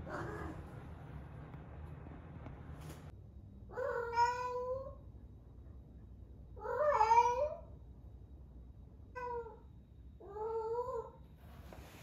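Young female tabby cat in heat calling: four drawn-out meows, the second the loudest and the third short. This is the insistent calling of a queen in oestrus, at the peak of her first heat.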